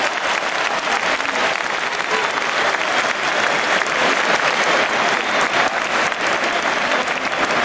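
Stadium crowd and players applauding, a dense, steady clapping.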